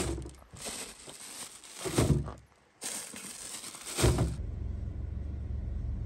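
Filled plastic food bags crinkling as they are handled and set down into a plastic crate, with three heavier thuds about two seconds apart. A little over four seconds in, this gives way to a steady low rumble of street traffic.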